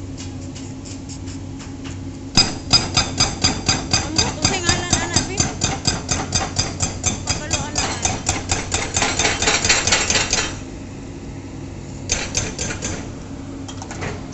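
Excavator-mounted hydraulic breaker pounding the road surface: a fast, even train of heavy blows, about five a second, starting a couple of seconds in and lasting about eight seconds, then a short second burst a moment later. A steady engine hum runs underneath.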